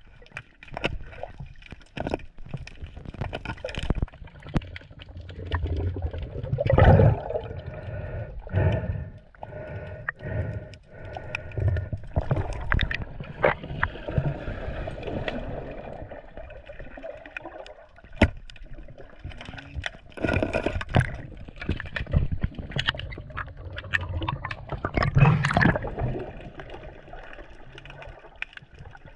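Seawater sloshing and splashing in irregular surges, with scattered knocks, loudest twice, about a third of the way in and near the end.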